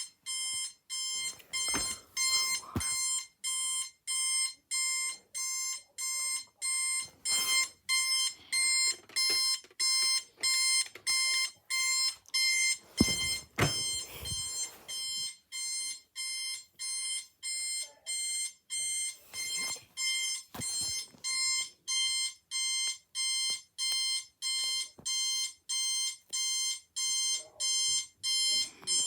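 Electronic alarm beeping steadily in a fast, even rhythm of about one and a half high beeps a second, with a few knocks in between.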